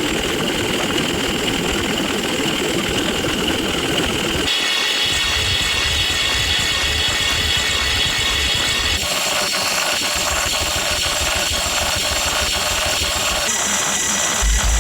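A string of loud, noisy sound effects, each cut off abruptly and replaced by the next about every four and a half seconds; one of them is a rapid, regular clatter.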